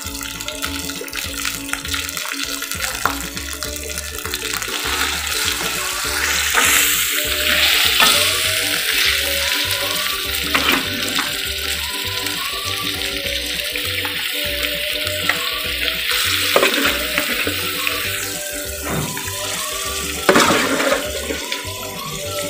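Raw chicken pieces frying in hot chili spice paste in a wok: a steady sizzle that swells louder a few times as more chicken goes in.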